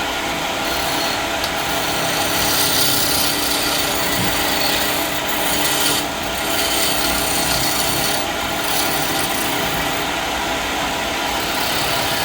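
Woodturning lathe running while the spinning wood is worked: a steady rasping with a faint motor hum, briefly easing about six seconds in.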